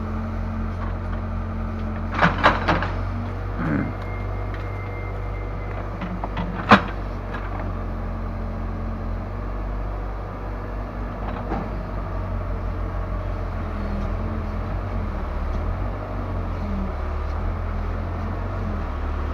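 Case 580L backhoe loader's four-cylinder diesel engine running steadily, with a quick cluster of sharp metallic clanks about two seconds in and one louder single knock a few seconds later.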